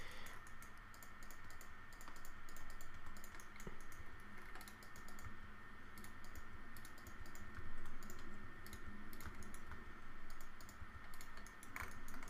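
Computer keyboard keystrokes, faint and in quick irregular clusters, with a thin steady whine underneath.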